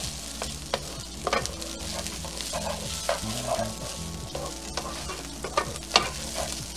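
Rice grains in hot oil in a frying pan, stirred and scraped around with a spatula: a steady light sizzle with scattered scrapes and taps, the sharpest about six seconds in. The rice is being warmed through and almost toasted in its coat of oil for risotto.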